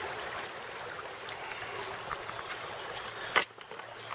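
Steady rushing of a mountain stream. About three and a half seconds in, a single sharp click, after which the rushing is quieter and a faint low hum is left.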